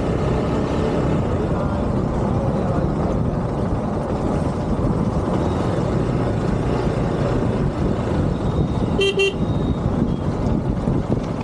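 Steady rumble of a motorcycle ride, engine and wind noise on the camera, with a vehicle horn giving two quick toots about nine seconds in.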